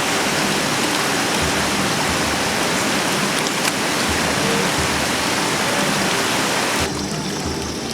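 Mountain river water rushing steadily: a loud, even hiss of flowing water. It changes abruptly and drops in level about a second before the end.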